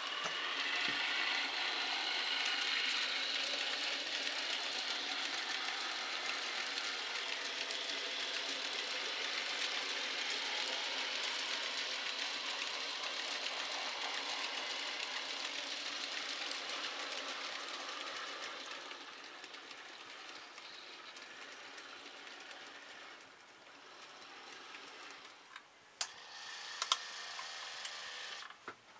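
A model freight train of hopper wagons rolling along the layout's track: a steady rolling rumble and rattle of small wheels on rail that fades away after about twenty seconds. Near the end come a few sharp clicks.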